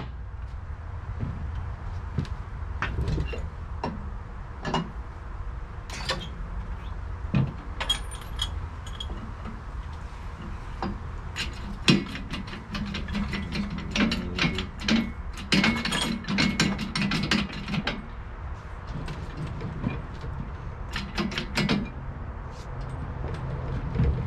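Scattered metal clicks and clanks of hand-tool work on an LS-swap engine's mount sliders. About halfway through comes a denser run of ratchet-like clicking. A steady low rumble runs underneath.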